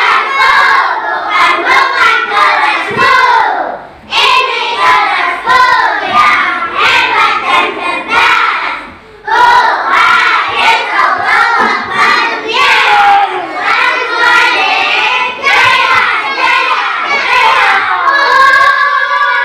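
A class of young children singing a cheer chant together, loud, with hand claps along the rhythm. It breaks off briefly twice, about 4 and 9 seconds in.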